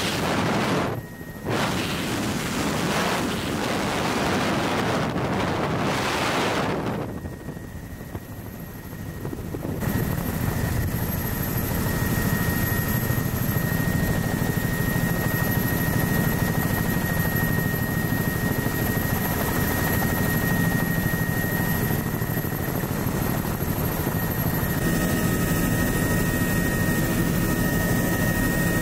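Helicopter in flight with the doors off: wind buffets the microphone in loud gusts for the first several seconds. Then comes a steady drone of rotor and engine with a low hum and a thin, steady high whine.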